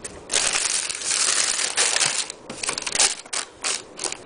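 Shoe-box tissue paper being crumpled and rustled by hand: a dense run of crinkling for about two seconds, then a few separate crackles.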